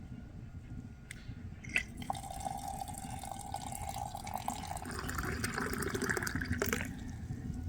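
Liquid being poured into a vessel, a steady stream whose note rises partway through as the vessel fills, stopping about seven seconds in.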